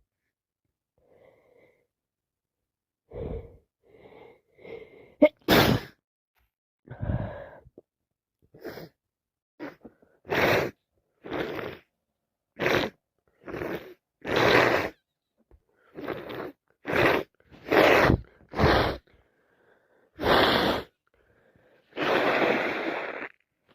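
A woman with a cold sneezing over and over in a long fit, with gasping breaths between. From the middle on the sneezes come about one a second, and a longer, noisier blast comes near the end.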